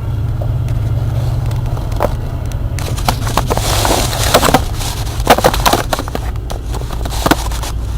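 Ford 302 V8 in a 1991 Ford F150 running under way, a steady low drone, with scattered knocks and rattles and a brief hiss in the middle.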